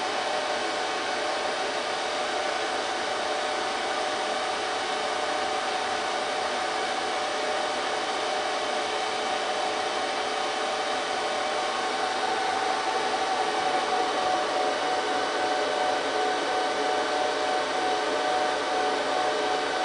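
HP ProLiant DL380 G3 server's cooling fans running during its power-on self-test: a steady whirring rush with several steady whining tones in it. About twelve seconds in it grows a little louder, and a higher tone joins soon after.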